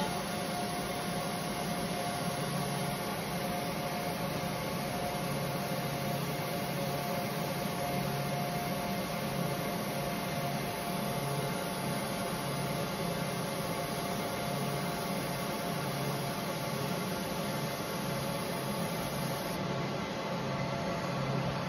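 UV laser marking machine running as it engraves glass: a steady fan-like whir with a constant hum-like tone and a low buzz that swells and fades.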